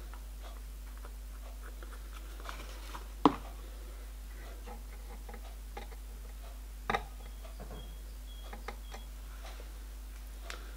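Small metallic clicks and taps as short pieces of welding rod are set as rivets into holes in a model locomotive's metal frame clamped in a vice: a sharper click about three seconds in, another near seven seconds, and a few fainter ticks, over a faint steady hum.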